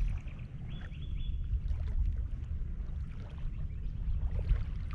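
Steady low rumble of water and wind against the camera microphone, with a faint high whistle about a second in.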